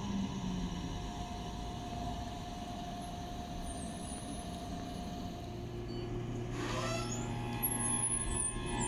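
Electric S-Bahn commuter train running with a steady electrical hum and several held whining tones, a brief rising whine about seven seconds in, and faint high-pitched squeals, growing louder toward the end.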